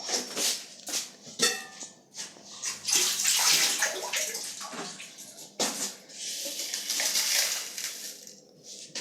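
Water running and splashing in two stretches, after a few sharp clinks near the start.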